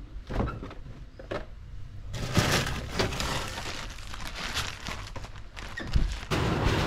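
Handling noises: scattered clicks, then a busy run of crinkling and knocking from about two seconds in. Near the end a steady rushing noise starts.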